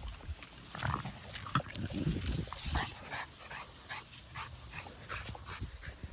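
French bulldog making a rapid, irregular string of short noises.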